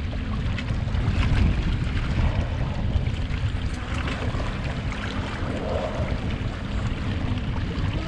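Wind buffeting the microphone on an open boat, a heavy uneven rumble, with choppy sea water washing against the hull.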